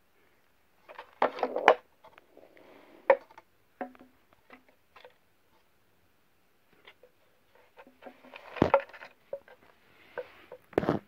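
Cat pawing at a puzzle box: irregular taps, knocks and scrabbling against its walls and openings, with louder clusters of knocks about a second in, past the middle, and near the end.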